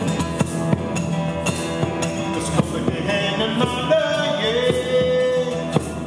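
Live folk band playing an instrumental passage: a bodhrán beats a steady pulse of about three strokes a second under strummed acoustic guitar, with fiddle and keyboard. Long held melody notes come in over the top in the second half.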